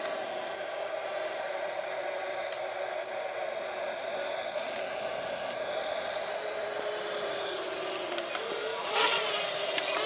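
Xinlin X181 Navgator X6 quadcopter flying overhead, its motors and propellers making a steady whir, with a louder rush of noise about nine seconds in.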